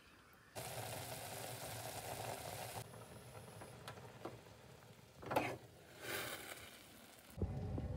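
A steel saucepan of instant noodles bubbling on a gas burner: a steady hiss that drops to a softer simmer after a couple of seconds. A few clicks and knocks follow as the stove knob is turned. A louder rumbling noise starts near the end.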